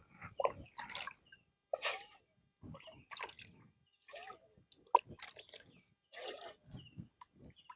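Water scooped up and poured from a ladle into a steel cooking pot in short irregular splashes, with a sharp knock about five seconds in.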